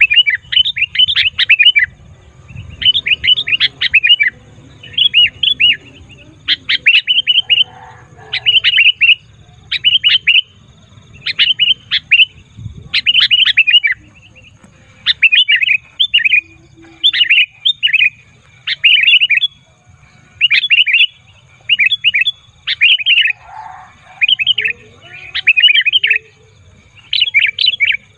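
Sooty-headed bulbul (kutilang) giving noisy, chattering calls: short bursts of quick, bright chirps, about one burst a second, repeated over and over.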